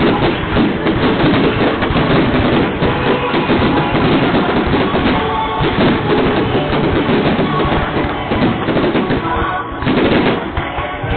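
Fireworks crackling and popping in a dense, continuous barrage, with music playing alongside.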